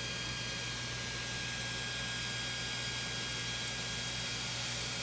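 Steady electrical hum and hiss with faint, thin high-pitched tones, unchanging throughout.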